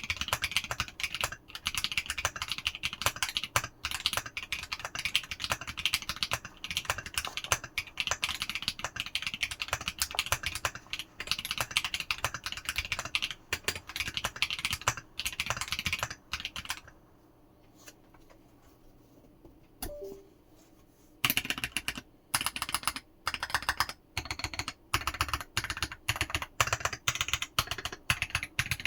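Typing on a 60% mechanical keyboard, a 1upKeyboards Pi60 PCB in a Tofu60 Redux case: a fast run of key clicks that stops for about four seconds a little past halfway, then resumes.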